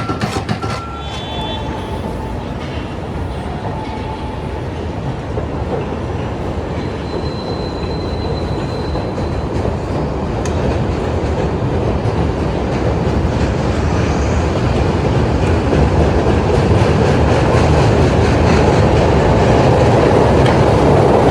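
Chicago 'L' elevated train running on the Loop tracks, a steady rumble and wheel clatter that grows louder through the second half.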